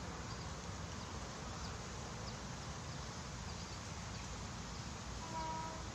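Quiet outdoor ambience: a steady low rumble with faint, scattered high chirps, and a short held tone with overtones about five seconds in.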